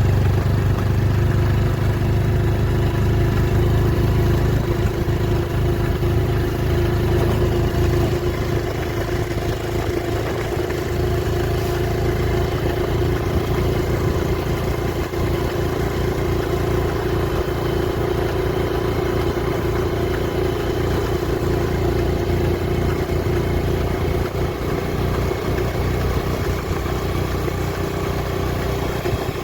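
A vehicle engine running steadily with a constant hum over a low rumble.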